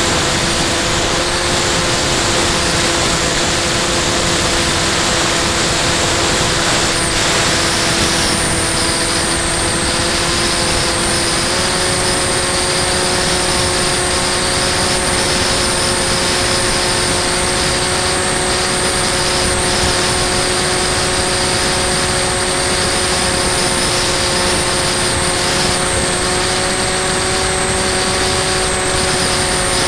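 Brushless electric motor and pusher propeller of a Bixler 2 foam RC plane running steadily in flight, heard from the onboard camera with wind rushing over the microphone. A thin high whine joins about eight seconds in, and the motor's pitch steps up slightly a few seconds later.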